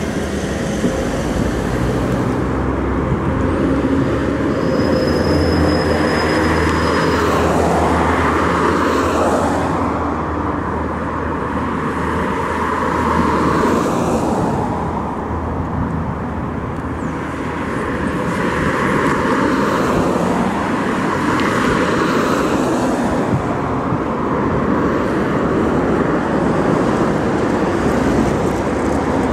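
City traffic noise around a NeFAZ-5299 city bus standing at a stop with its engine running; the steady rumble swells several times as other vehicles pass by.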